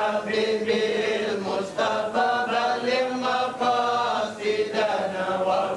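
Arabic religious chanting (a nasheed): a singing voice carries a slow, ornamented melody in long, wavering held notes.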